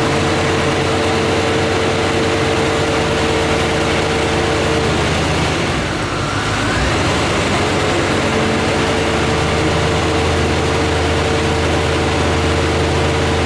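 Chevrolet Corvette C4's small-block V8 idling in gear with the brake held, still misfiring a little. The steady engine note briefly dips and wavers about halfway through, then settles again.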